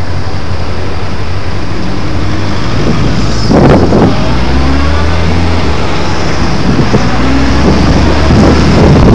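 Motorcycle engine running, heard through a bike-mounted camera with wind buffeting its microphone. About three and a half seconds in, the engine revs up with rising pitch as the bike pulls away and accelerates.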